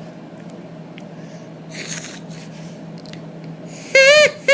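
Homemade drinking-straw reed noisemaker, its flattened end cut to a point, being blown: a breathy rush of air about two seconds in, then near the end a short, loud, buzzy squawk at a steady pitch, with a quick second blip right after.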